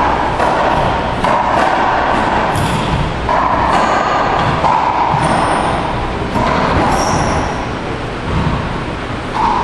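Racquetball rally: the ball hits racquets and the court walls roughly once a second, each impact echoing in the enclosed court, over loud steady background noise.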